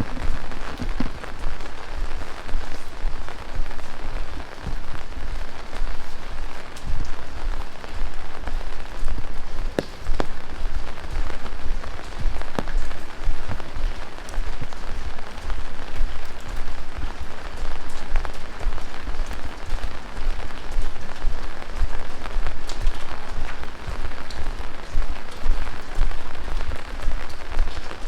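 Heavy rain falling steadily, with scattered sharper drops and splashes heard through the downpour.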